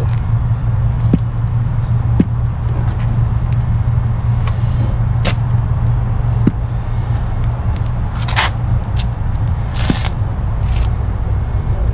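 A steady low rumble with several brief rustles and light clicks.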